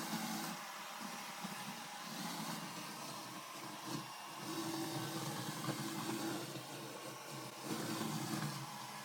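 Roborock S8 Pro Ultra robot vacuum running, a steady motor whir with hiss whose low hum swells and fades every couple of seconds.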